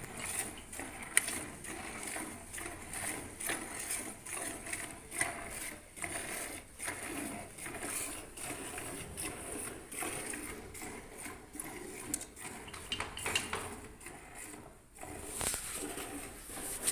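A cow being milked by hand, the milk squirting into a pail in a steady rhythm of about two to three squirts a second, with a short pause near the end.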